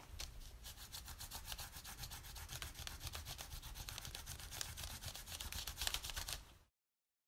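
Graphite pencil rubbed quickly back and forth over paper laid on a rubber sink mat: a faint, steady scratching of rapid shading strokes that cuts off suddenly near the end.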